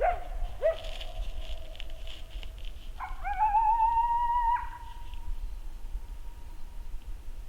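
Coyote howls: two long, wavering calls, each swooping up and then held, the first sliding down as it fades and the second starting about three seconds in and trailing away thinly. A low rumble of wind on the microphone runs underneath.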